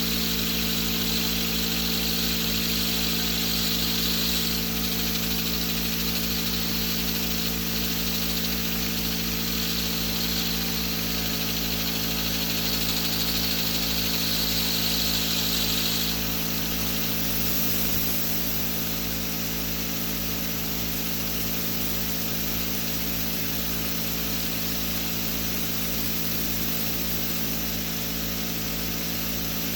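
Homemade 10-inch Tesla disc turbine spinning steadily at around 1600 rpm, a constant hum of several tones with a hiss over it that fades about sixteen seconds in. It runs on 1-inch hex-bore agricultural bearings made for low speed, which drag heavily at this rotation rate.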